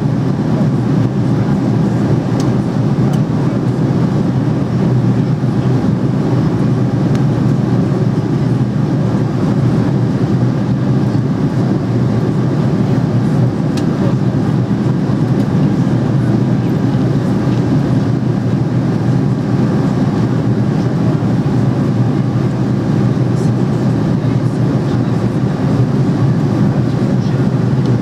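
Steady in-flight cabin noise inside an Airbus A300-600 widebody: the low drone of the engines and rushing air, with a faint steady hum, unchanging throughout.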